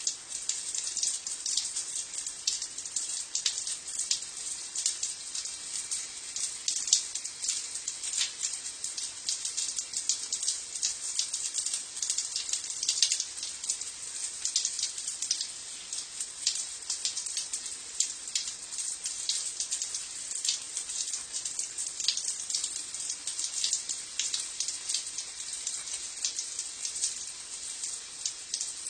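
Shower water spraying and spattering onto a stone floor: a steady bright hiss full of fine irregular splashes.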